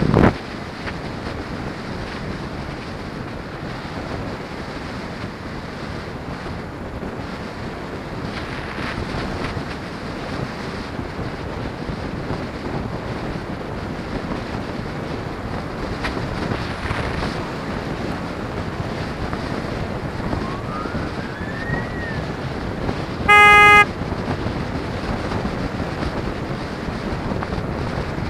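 Steady wind noise rushing over the microphone of a camera on a moving two-wheeler, with road and traffic noise, and a brief thump right at the start. About 23 seconds in a car horn sounds once, a short steady honk that is the loudest sound.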